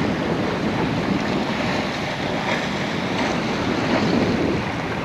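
Wind buffeting the camcorder microphone over the steady rush of water along the hull of a sailboat under way.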